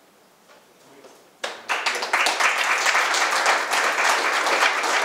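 Audience applauding, breaking out suddenly about a second and a half in and holding as a full, steady round of clapping.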